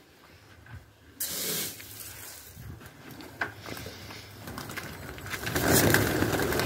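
A large flock of pigeons taking off, many wings flapping at once, loudest near the end. A brief hiss comes in suddenly about a second in.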